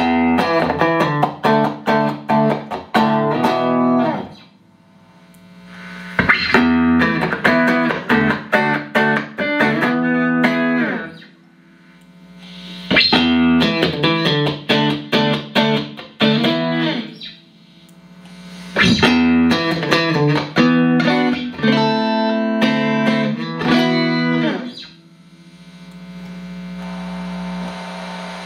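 Clean electric guitar, a Stratocaster played through a Boss CP-1X compressor and a Boss GE-7 equalizer into Roland JC-120 amps. It plays four short phrases of picked notes and chords, each ringing out for a few seconds with brief pauses between. After the last phrase only a steady amp hum with hiss is left.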